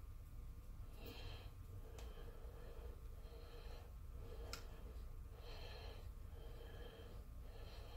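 Faint metal-on-metal rasping as an epoxy-repaired lathe cross slide nut is threaded by hand along its lead screw, a soft scrape with each turn, with a few light clicks.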